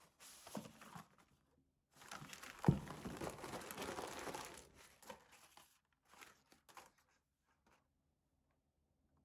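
Paper or plastic packaging crinkling and rustling as it is unwrapped by hand: a short rustle, then a longer spell of crinkling with one knock partway through, a few light taps, then quiet handling noise dies away.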